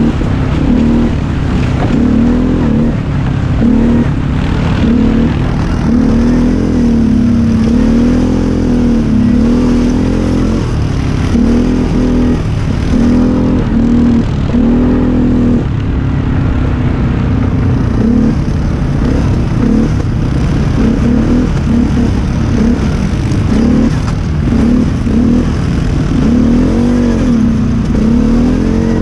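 ATV engine running under way, its pitch rising and falling again and again as the throttle is opened and eased.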